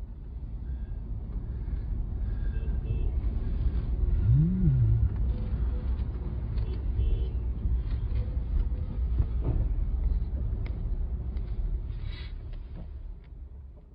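Steady low rumble of road and engine noise from a moving vehicle, with one short rising-then-falling tone about four and a half seconds in; it fades away near the end.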